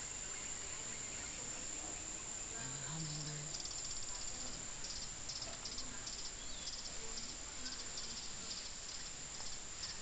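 Insects calling: a steady high-pitched drone, joined about three seconds in by crickets chirping in repeated rapid pulsed trills.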